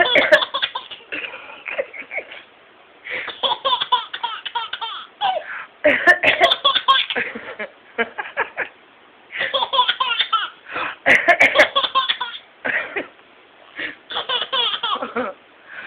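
Baby laughing in about six bouts of one to two seconds each, with short pauses between them.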